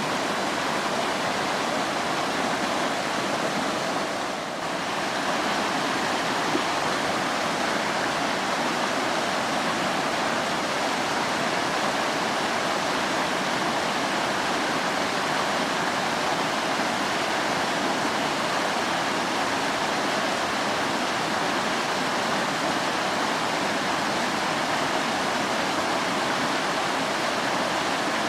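Waterfall pouring onto rock, a steady rushing of water that dips briefly about four and a half seconds in.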